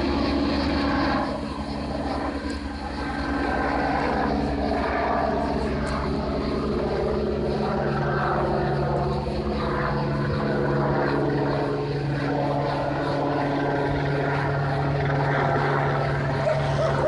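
A large flock of birds chattering busily at night, a dense jumble of short calls, over a steady mechanical drone.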